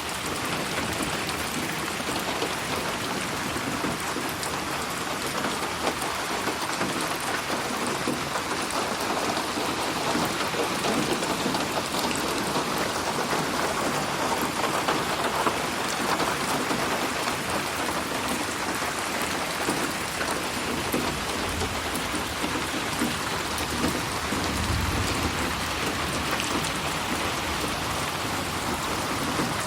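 Steady rain falling and pattering on surfaces, mixed as 8D audio that moves around the listener. A low rumble swells briefly twice in the second half.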